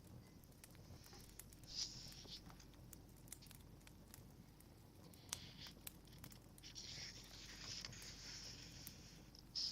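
Fireplace crackling faintly: scattered sharp pops and snaps, with a few soft hissing stretches, the longest from about seven to nine seconds in.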